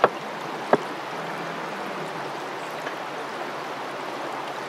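Steady rushing of a creek. Two sharp clicks about three-quarters of a second apart near the start.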